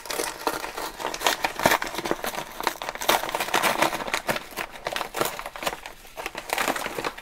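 Plastic poly mailer bag crinkling and crackling as hands pull and tear it open, a dense run of irregular crackles.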